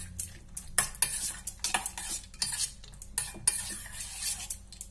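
A steel spoon stirring a thick curd and chopped-nut mixture in a small stainless-steel pot, with repeated irregular clinks and scrapes of the spoon against the pot's sides and bottom.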